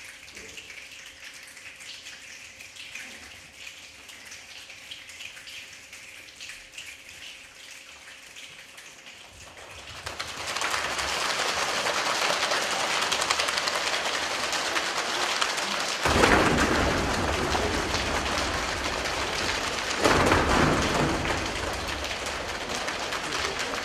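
Rainstorm sound effect: a faint patter for about ten seconds, then heavy rain sets in suddenly. Deeper surges of thunder swell up about six and ten seconds later.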